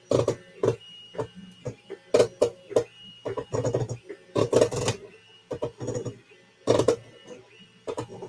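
Small desktop 3D printer printing: its stepper motors buzz in short, irregular moves of the print head and bed, over a steady hum from the cooling fan.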